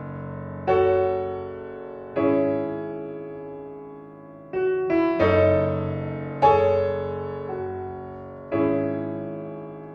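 Background piano music: slow chords struck every second or two, each left to ring and fade before the next.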